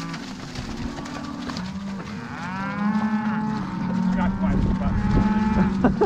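Cattle bellowing as two of them butt heads in a fight: a long bellow that rises in pitch about two seconds in, then holds steady and grows louder.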